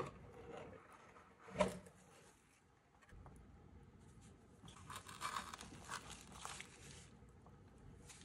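Cardboard box handled, with a knock at the start and another about one and a half seconds in, then plastic bubble wrap crinkling and rustling for about two seconds as the pistol is lifted off it.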